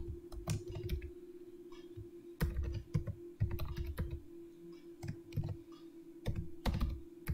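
Computer keyboard typing: irregular keystrokes coming in short runs with pauses between them, over a steady low hum.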